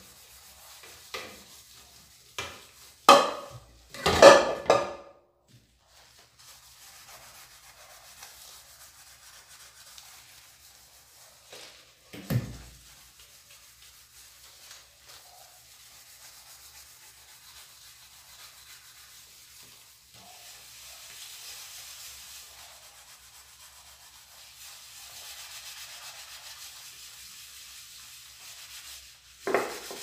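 Sponge scrubbing a soapy aluminium pot with homemade cleaning paste, a soft steady rubbing that grows a little louder in the second half. Loud metal clatters of the pot being handled a few seconds in, a single thud near the middle, and another knock near the end.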